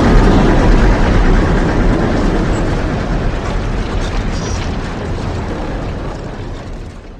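Loud, steady rumbling roar of a storm recording, with no clear tone in it. It fades over the last couple of seconds and dies away at the end.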